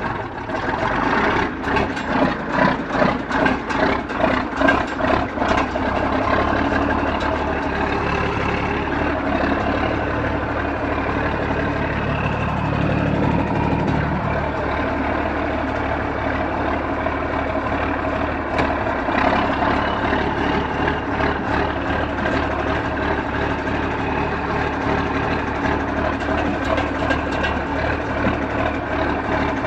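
John Deere 4630 tractor's turbocharged six-cylinder diesel running steadily as the tractor drives off in gear. For the first few seconds a rhythmic knocking or clatter comes about twice a second over the engine, and returns more faintly a little past the middle.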